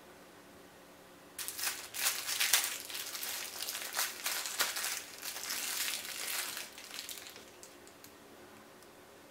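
Clear plastic wrapper crinkling as it is pulled off a small mochi squishy toy. It starts about a second and a half in and dies away about two seconds before the end.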